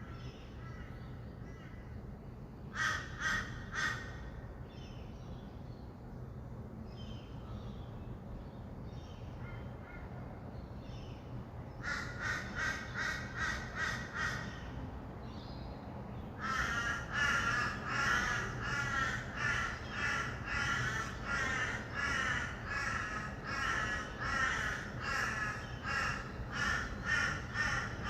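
Rainbow lorikeets screeching in rapid, harsh, chattering calls: a short burst about three seconds in, another at around twelve seconds, then almost continuously from about sixteen seconds on. Underneath is a low, steady hum of distant city traffic.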